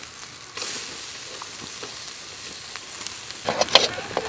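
Whole quail sizzling on a wire grill rack over charcoal, a steady hiss. A louder burst of crackles and pops comes about three and a half seconds in.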